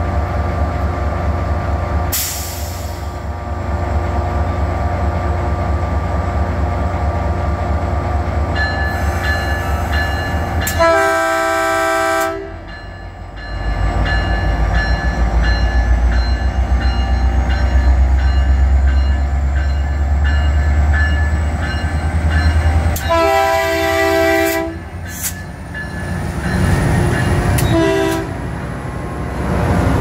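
Caltrain MP36PH-3C diesel locomotive running at the platform, its engine drone growing louder about halfway through as the train pulls away. The chord air horn sounds three times: two blasts of about a second and a half each, then a short toot near the end.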